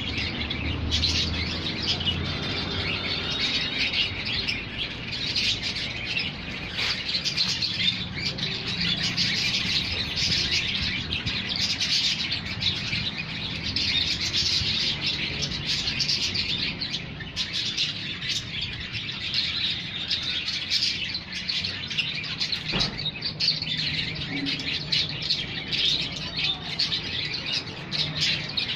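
Many small birds chirping continuously in a dense, unbroken chatter, with a faint low hum underneath.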